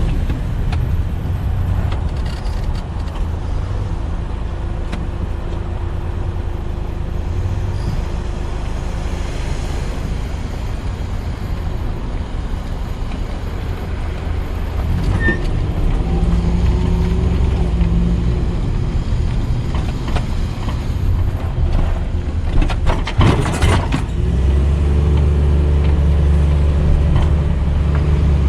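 Steady low rumble of a motor vehicle running, growing louder in the second half, with a short clatter about three-quarters of the way through.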